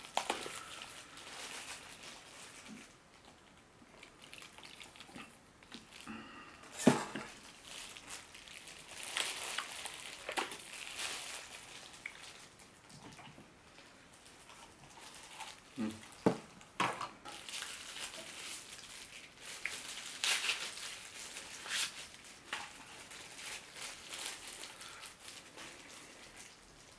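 Plastic-gloved hands handling and opening a plastic pack of pickled side dish: crinkling plastic with scattered sharp clicks and knocks, the loudest about 7 seconds and 16 seconds in.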